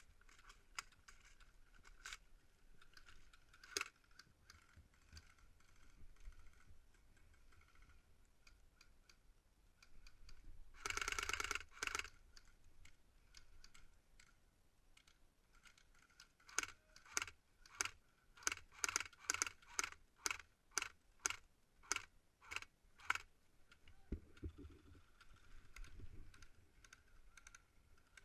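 Airsoft guns firing across the field: scattered single pops, one sustained burst lasting about a second and a half, then a steady run of sharp single shots at about two a second for several seconds.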